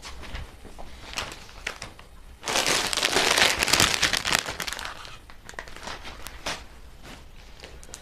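Crinkling and rustling of packaging being handled. The loudest part is a dense stretch of about two and a half seconds starting a third of the way in, with scattered smaller crackles before and after it.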